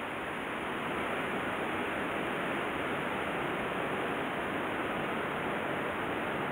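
Stream water running, a steady even rushing hiss with no breaks.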